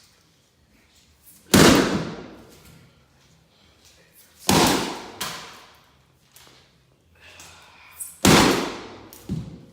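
Sledgehammer striking an old HP laptop: three heavy blows about three seconds apart, with lighter knocks after the second and third.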